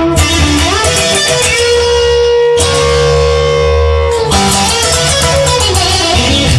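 Instrumental passage of a rock song: electric guitar playing held notes with a few sliding bends, over bass and drums.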